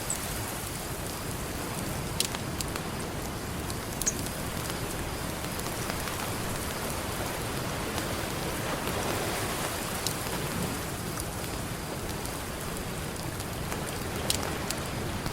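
Campfire crackling, with a few sharp pops, over a steady wash of ocean surf that swells and eases about halfway through.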